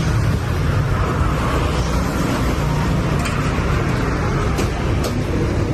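Steady street traffic noise with a low rumble, and a few faint clicks in the last couple of seconds.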